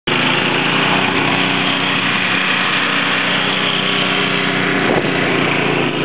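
A small engine running steadily at a constant speed.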